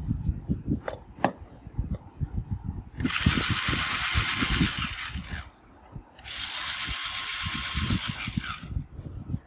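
A toy RC rock crawler's small electric drive motor and plastic gearbox whirring in two bursts of about two and a half seconds each, with low knocks and handling noise around them.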